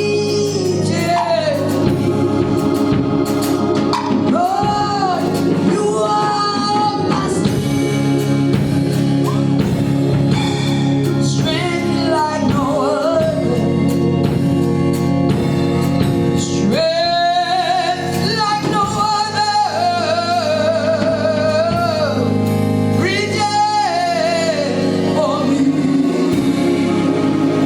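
Gospel music: a voice sings long, wavering, ornamented lines over steady held instrumental chords.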